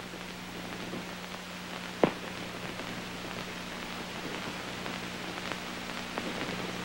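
Old film soundtrack noise: a crackling hiss over a steady low hum, with faint scattered ticks and one sharp pop about two seconds in.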